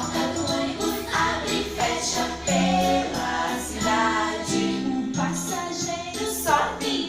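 A recorded children's action song playing: a sung melody over an instrumental backing with a steady beat.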